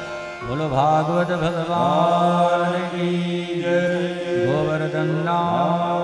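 Devotional chanting: a voice sings long, sliding phrases over a steady held drone note, without drums.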